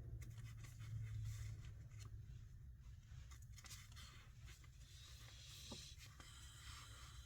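Faint scratching and rubbing with a few light clicks, over a low hum that fades in the first couple of seconds.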